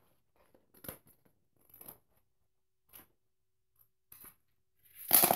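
Scissors cutting paper: a few short, faint snips about a second apart, then a louder burst of noise near the end.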